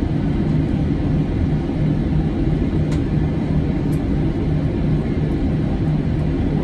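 Airbus A320 cabin noise during taxi: the engines at idle and the cabin air give a steady low rumble, with a low hum that wavers about twice a second.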